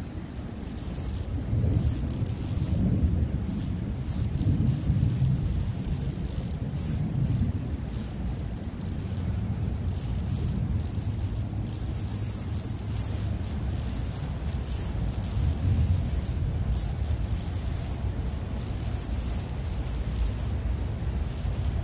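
Wind rumbling on the microphone, uneven and low, under a high, steady insect buzz that drops out briefly now and then.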